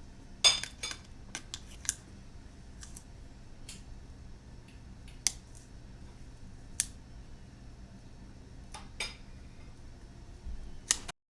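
Sharp, irregular plastic clicks of PBT keycaps being handled and pressed onto a mechanical keyboard's switches. A quick cluster of clicks comes about half a second in, then single clicks every second or two.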